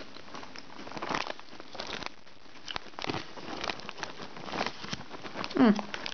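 Plastic crisp bag of Cheetos Pelotazos crinkling and crackling in short bursts as a hand rummages in it for the cheese-ball snacks. Near the end, a short falling vocal sound.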